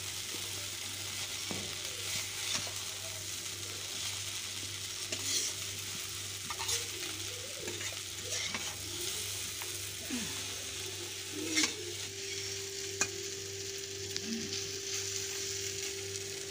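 Maggi noodles with egg frying in a metal kadai give a steady sizzle, while a metal spatula stirs and lifts them, scraping and clicking against the pan now and then.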